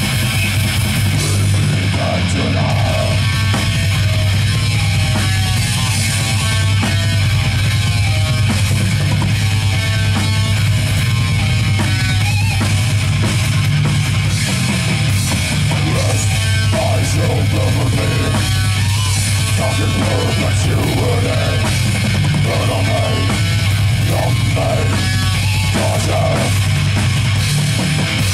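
Heavy metal band playing live and loud: distorted electric guitar, bass guitar and drum kit.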